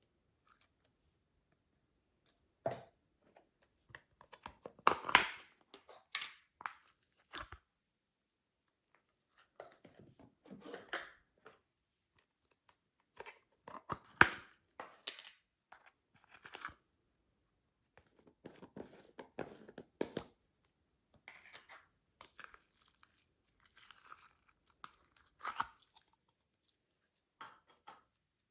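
Slime being squished and worked by hand, making clusters of wet crackles and clicks in bursts of a second or two with short pauses between them.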